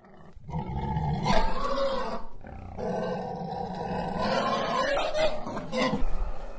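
Logo intro sound effect of a wild animal's call in two long, drawn-out stretches, with a sharp hit about a second in and another near the end.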